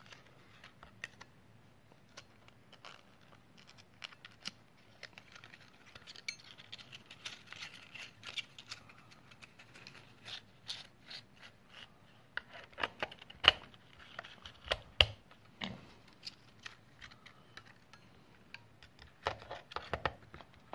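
Scattered small clicks, taps and scrapes of fingers handling a small GIC 16mm film camera's metal body, film spool and cover, with a few sharper clicks past the middle and a cluster of clicks near the end.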